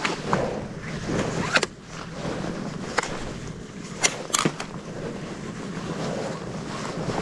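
Wind rumbling on the microphone, with a handful of sharp clicks and knocks from handling a fishing rod and walking on a concrete breakwater.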